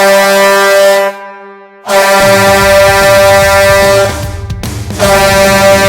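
Ice hockey arena goal horn sounding in three long blasts, signalling a goal: the first cuts off about a second in, the second runs from about two seconds to four, and the third starts about five seconds in. Goal song music with a steady low beat comes in under the horn from about two seconds.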